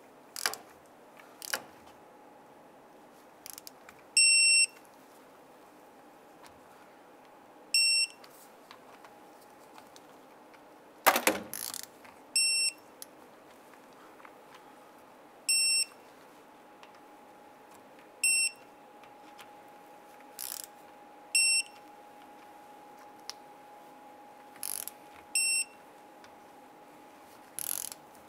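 Digital torque wrench beeping as each differential cover bolt reaches its set torque of 12 ft-lb: about seven short, high beeps a few seconds apart. Sharp metallic clicks of the wrench and socket come between the beeps as it moves from bolt to bolt.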